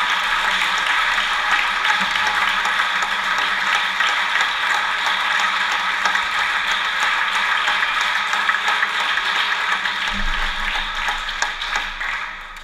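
Audience applauding, a dense steady clatter of many hands clapping that dies away near the end.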